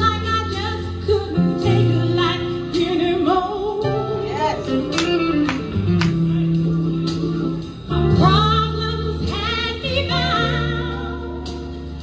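Gospel song with a female singer over steady low sustained notes and a few sharp percussion hits.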